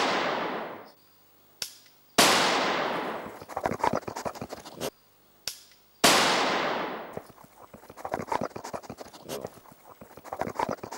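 Gunshots, three in all, each ringing out in a long rolling echo that fades over one to two seconds and breaks up into a rattle of reflections. A faint click comes about half a second before each shot.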